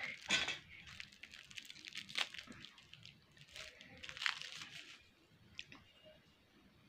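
Irregular crinkling and rustling of a plastic wrapper being handled and torn, with several sharper crackles, dying down after about five seconds.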